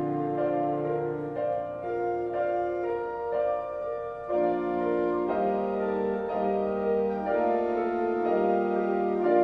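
Slow instrumental piano music, its held chords changing about once a second.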